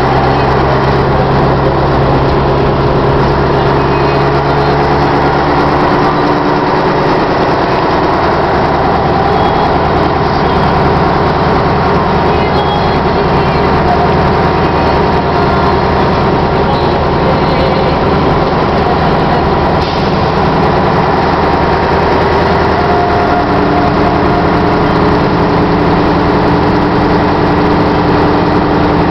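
Scania 142's V8 diesel engine running under way, a loud steady drone whose note changes about six seconds in and again after about twenty-three seconds.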